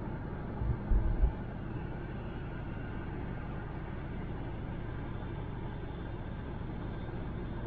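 Steady road and tyre noise of a car cruising on a highway, heard from inside the cabin, with a short cluster of low thumps about a second in.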